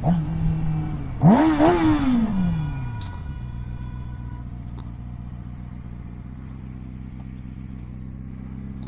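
Suzuki GSX-R sport bike engine revving sharply once about a second in, its pitch falling back over the next two seconds as the bike slows. It then settles to a steady idle.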